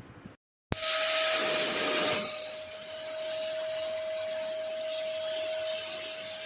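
QuickFix 20-litre 1600 W wet and dry vacuum cleaner running steadily, its motor a loud rushing whine with a high steady tone. It cuts in abruptly after a brief silence less than a second in.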